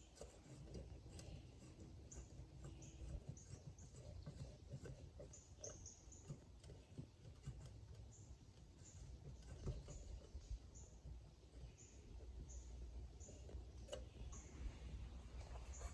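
Near silence: faint short high chirps repeating every half second or so, with a few light clicks.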